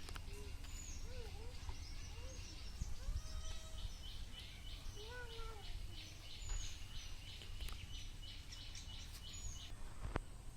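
Birds calling over a low outdoor rumble. In the middle stretch there is a run of evenly repeated high chirps, about two to three a second.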